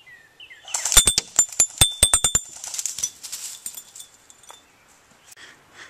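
A rapid full-auto burst of airsoft BBs striking a water-filled glass Coca-Cola bottle: about a dozen sharp ticks in under two seconds with a high glassy ringing. The bottle is knocked off without shattering, followed by a softer clatter.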